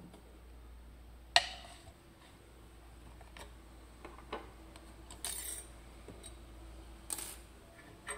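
Small metal clicks and clinks of a pin tumbler lock cylinder and hand tools being handled as the lock is taken apart. A sharp click comes about one and a half seconds in, followed by scattered lighter taps and a short scrape.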